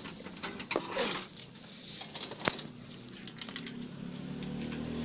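A few sharp metallic clicks and clinks. Then, from about three and a half seconds in, a vehicle engine running low in the background, growing louder toward the end.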